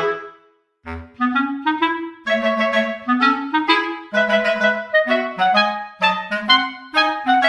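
Background music: a melody of short, quick notes, woodwind-like in tone. It breaks off for about half a second shortly after the start, then resumes with a low thump.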